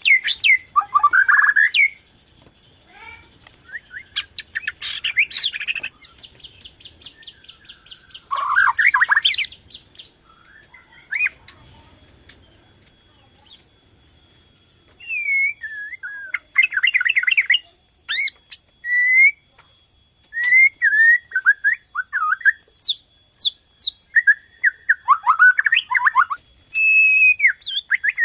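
Borneo white-rumped shama (murai batu) singing a lure song in bursts of varied whistled phrases. About six seconds in comes a fast, rattling run of repeated notes, and midway there is a lull of a few seconds.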